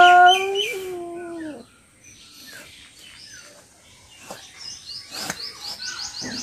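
Domestic cat giving one long, drawn-out yowl, the threat call of a standoff with another cat, fading out about a second and a half in. Small birds then chirp, ending in a quick run of short, high, rising chirps, about five a second.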